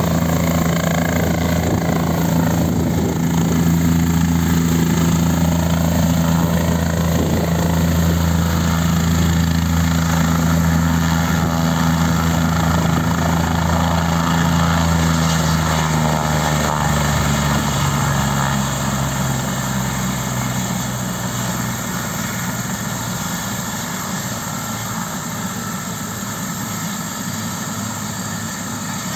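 Light skid-equipped helicopter's engine and main rotor running steadily as it sets down on its skids. About two-thirds of the way through, the engine note dips slightly and the sound eases off as the helicopter throttles back toward idle on the ground.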